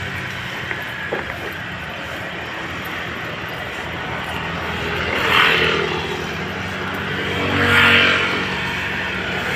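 Steady road traffic noise, with two vehicles passing by that swell and fade about five and eight seconds in.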